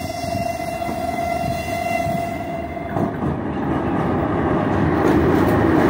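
3ES5K 'Ermak' electric locomotive sounding its horn in one steady blast of about three seconds. After it stops, the rumble of the locomotive and its freight train grows louder as it approaches.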